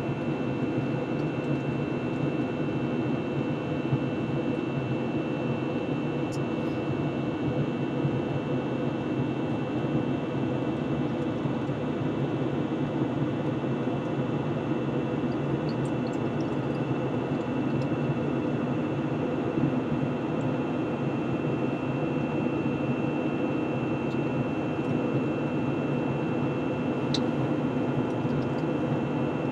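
Steady cabin noise inside an Airbus A321: the jet engines and airflow make an even rushing hum, with a thin, steady high-pitched whine over it.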